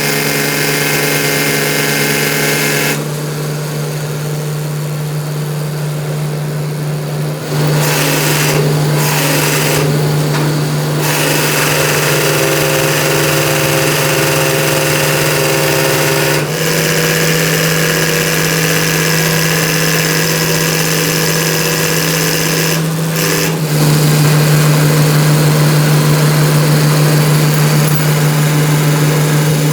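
A machine running steadily with a constant low hum, its sound changing abruptly a few times.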